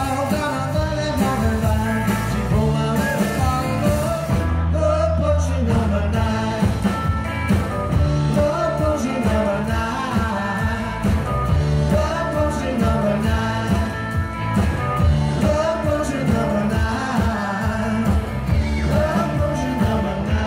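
Live rock-and-roll band playing through a PA: electric guitars, electric bass and a drum kit keeping a steady beat, with a man singing lead.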